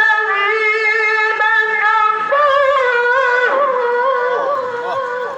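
A male qari chanting Quran recitation (tilawah) in long, high held notes with melismatic ornaments, stepping up in pitch about two seconds in and tailing off near the end.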